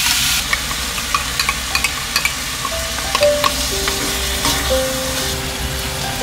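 Shrimp and onion frying and sizzling in a cast iron skillet while a wooden spatula stirs them, clicking against the pan several times in the first few seconds. Soft background music with a slow melody comes in about halfway through.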